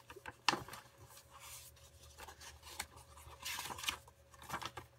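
Paper pages of a handmade junk journal being turned and smoothed by hand: several short papery rustles and slides, with a sharp tap about half a second in.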